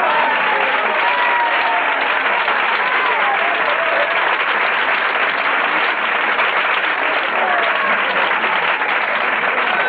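Audience applauding steadily in a small crowded room, with voices calling out over the clapping.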